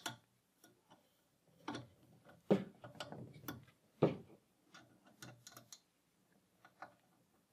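Scattered small metal clicks and ticks of a hex key turning in the grub screws on a metal focuser bracket as they are tightened, with two louder knocks about two and a half and four seconds in.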